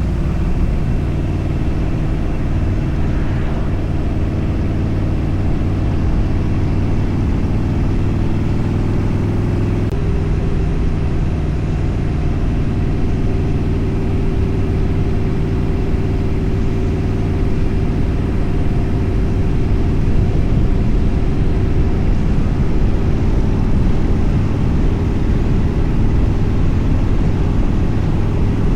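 Motorcycle engine running at highway speed, with wind noise rushing over the microphone. The engine note changes about ten seconds in.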